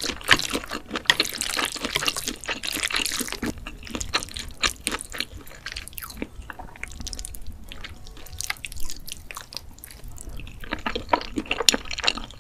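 Close-miked wet eating sounds: many quick, sticky clicks and smacks of chewing and slurping, thinning out in the middle and picking up again near the end.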